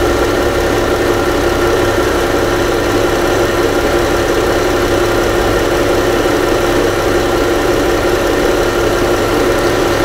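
A 2018 Chrysler 300's engine idling with a steady, even hum and no misfire, having started hard because of a bent crankshaft trigger wheel tooth.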